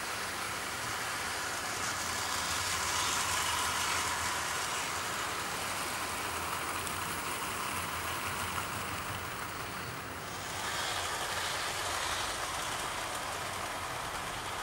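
00 gauge model trains running on the layout: a steady rolling of wheels on the track, growing louder around three seconds in, dipping briefly just before ten seconds and swelling again just after.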